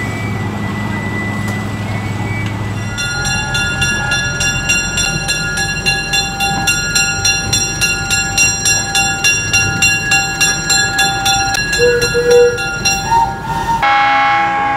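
A train bell ringing over and over, about two to three strokes a second, over a low engine hum. Near the end comes a loud whistle toot.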